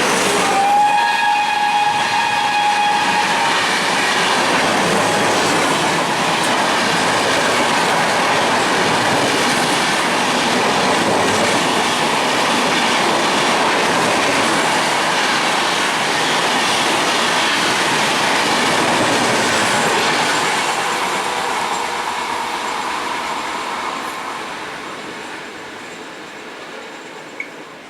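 A train horn sounds for about three seconds, then a train runs past at speed, a loud dense noise of wheels on the rails that holds for about twenty seconds and then fades away.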